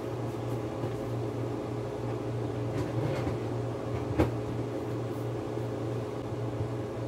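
Steady hum of a motor-driven appliance running, with a single sharp knock about four seconds in.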